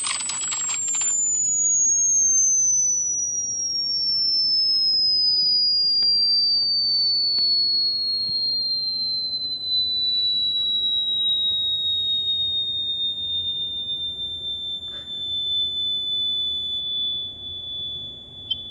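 Electronic sine-wave test tone gliding slowly down from a very high pitch, levelling off into a steady high whistle near the end: a high-frequency 'sound dogs hate' clip.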